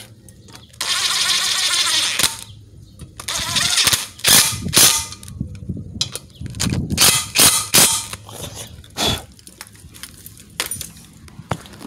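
Ratchet wrench with an 8 mm socket clicking as it drives down two bolts: one long run of fast clicks about a second in, then several shorter runs and a few knocks.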